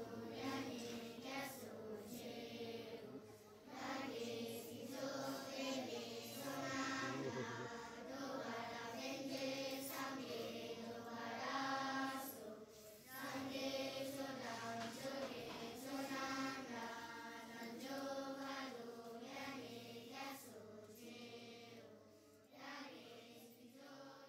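Voices chanting on long, held pitches, in the manner of a choir, fading out near the end.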